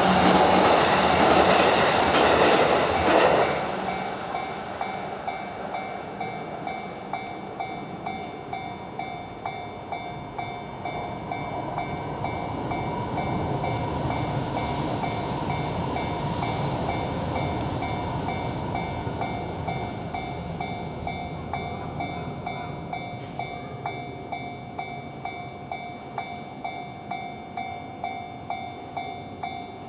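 A train running over a Japanese level crossing, its noise cutting off about three seconds in as it clears. The crossing's electronic warning bell then keeps ringing in an even beat of about two strikes a second, and a broad rushing noise swells and fades in the middle.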